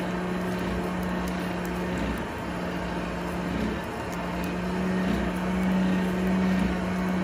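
Coal forge fire burning under forced air: a steady rushing noise with a low, steady electric-motor hum underneath.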